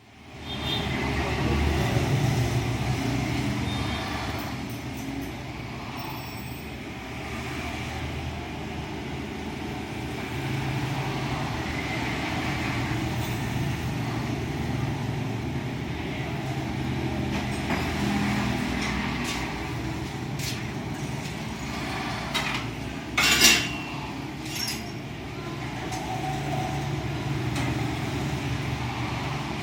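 Industrial robot running under a software test: a steady motor hum that swells and eases as it moves, with one short, loud burst of hissing noise about three quarters of the way through.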